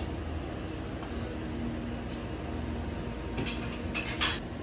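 Steady low hum of restaurant room tone, with a few short light clicks near the end.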